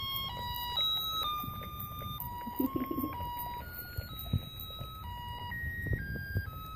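A small electronic sound chip plays a simple beeping tune, one plain note after another, about two notes a second, stepping up and down in pitch. About two and a half seconds in, a short voice is heard over it.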